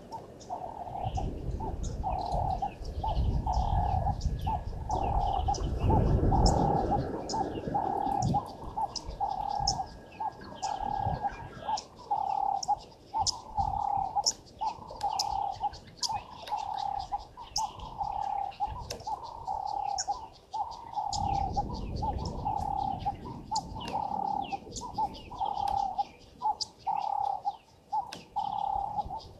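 A bird calling a long, even series of short low hooting notes, about one a second, over many thin high chirps from small birds or insects. A low rumble comes in about a second in and again about twenty seconds in.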